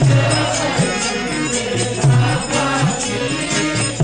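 Sikh devotional kirtan music: an instrumental passage with a steady beat and jingling percussion between sung lines of the refrain.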